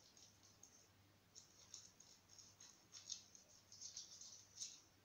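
Very faint, irregular soft crackling and squishing of a cut lemon being rubbed and scrubbed over the skin of the face.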